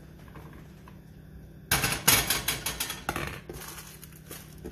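Kitchen clatter starting about two seconds in: a ceramic plate set down by the stove and a metal spatula scraping and knocking in a frying pan, tailing off into a few light clicks.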